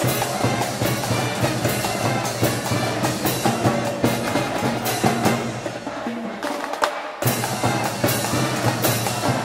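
A school cheering band of brass and drums in the stands at a baseball game, playing a repeated cheer tune with steady drum beats; it breaks off briefly a little before the end and starts again strongly.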